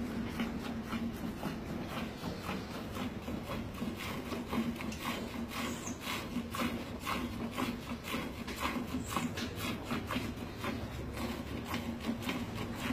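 Hand-milking a Holstein cow: squirts of milk from alternating teats hit the froth in a nearly full metal pail, in regular strokes about two to three a second. A steady low hum runs underneath.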